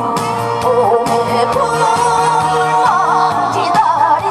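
A woman singing with vibrato into a microphone over an amplified instrumental accompaniment.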